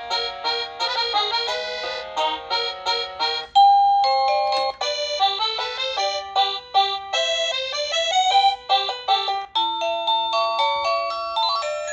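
Wireless doorbell chime unit playing its electronic melody tunes in quick runs of notes. A few seconds in, one tune breaks off and the next begins, as the unit steps through its 38 selectable chimes.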